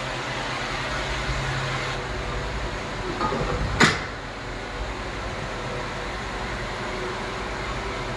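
Steel door of a shipping-container room swung open: a short scrape, then a single sharp metallic clank about four seconds in. A steady fan-like whoosh runs underneath.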